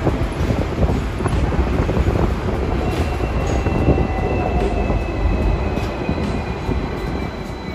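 Hong Kong double-decker electric tram running on street rails: a steady low rumble of steel wheels on track with scattered clicks, and a faint high whine that slowly falls in pitch from about three seconds in.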